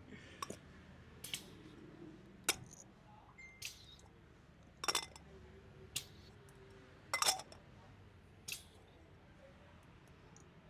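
Small hard objects being handled: about eight scattered sharp clicks and light taps at uneven intervals, two of them doubled, in a small room.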